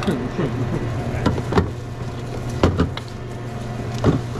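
Sandwich making at a sub shop counter: a handful of short, sharp knocks and taps over a steady low hum.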